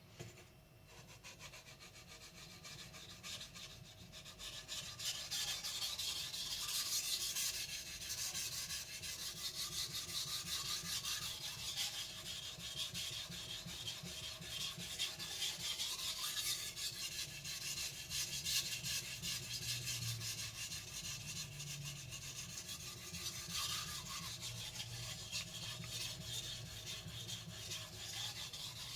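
Blue carbon steel gyuto blade being stroked back and forth on a wet Naniwa whetstone: a continuous rapid scraping, faint at first and louder from about four seconds in.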